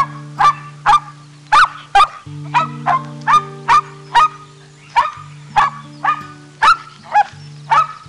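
A dog barking repeatedly in short, sharp barks, about two a second, over soft background music with steady held notes.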